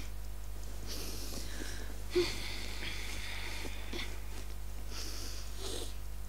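A person breathing audibly, with several breathy exhales and sighs over a steady low hum from the tape. There is a brief, louder sound about two seconds in.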